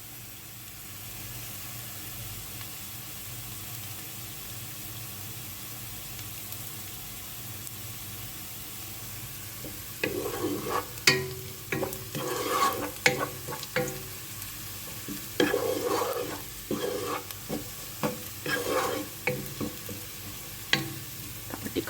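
Sliced onions sizzling steadily as they fry in oil in a pot. About ten seconds in, stirring starts, with irregular scraping knocks of the spoon against the pot.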